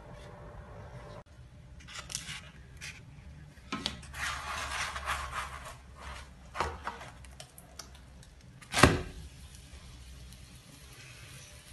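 A black spatula scrapes and taps in an enamelled cast-iron skillet as it loosens and lifts a pan-fried börek: a few light clicks, a scrape of a second or so, and one sharp knock against the pan near the end, the loudest sound. A low steady hum runs underneath.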